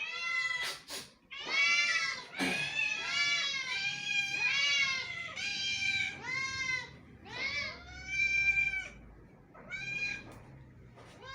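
Cats meowing over and over, a quick run of drawn-out calls that rise and fall in pitch, some overlapping, growing sparser in the last few seconds.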